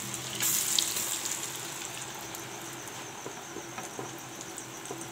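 Batter-coated potato chips deep-frying in hot oil: a loud hissing sizzle with scattered crackles, surging about half a second in and then easing off gradually.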